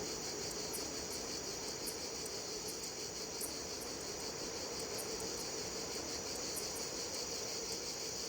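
Forest ambience: a steady, high insect trilling like crickets, with brief very high chirps about once a second.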